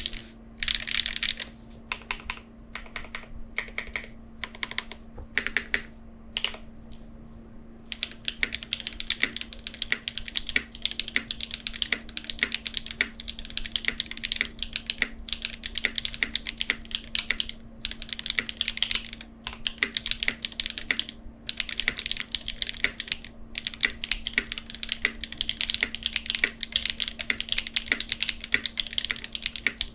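Typing on a Cycle 8 mechanical keyboard with lubed Jieum V2 switches, tuned Staebies stabilizers and KKB Mixed Light keycaps in a case with no foam. Scattered keystrokes at first, a brief pause about seven seconds in, then fast continuous typing.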